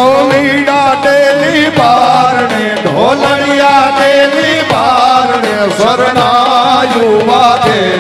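Male voice singing a Gujarati folk wedding song (lagna geet) in a wavering, heavily ornamented line, accompanied by drums and instruments.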